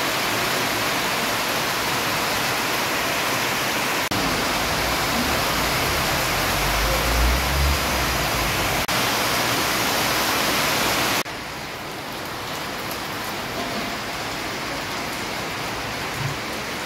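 Heavy rain pouring onto a wet street, a steady hiss. The sound changes abruptly at several cuts, turning duller and quieter about two-thirds of the way through, with a brief low rumble near the middle.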